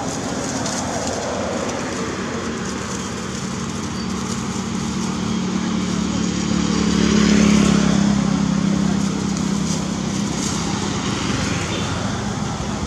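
Engine hum of a passing motor vehicle, growing louder to a peak a little past halfway and then easing off.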